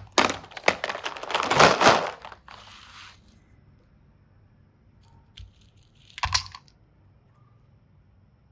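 Packaging being crinkled and torn open, a dense crackle for about two and a half seconds that fades to a soft rustle, with one more short crinkle a little after six seconds.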